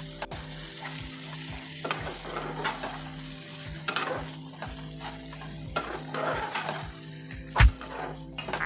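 Chicken pickle masala frying in oil in a nonstick kadai, sizzling while a spatula stirs and scrapes it around the pan, with one louder knock of the spatula near the end.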